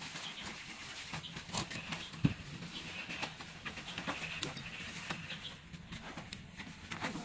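Nylon tent fabric rustling and being handled, with scattered light clicks and knocks, one sharper knock about two seconds in, as the tent sleeve is pulled over and fastened to the rear of an SUV.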